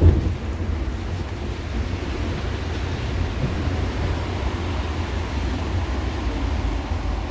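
Cabin interior of a rubber-tyred Métro MP 73 train running: a steady low rumble with road-like tyre noise. There is a brief thump at the very start.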